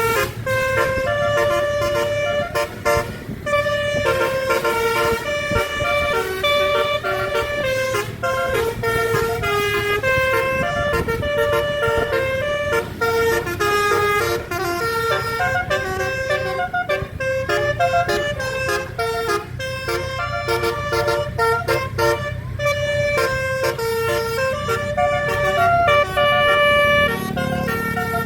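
Basuri telolet horn on a tour bus playing a melody of quick-changing notes, several horn tones sounding together, over the low hum of the bus's engine.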